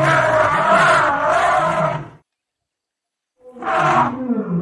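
Two loud, long, harsh calls from a large wild animal, separated by about a second of silence; the second call falls in pitch.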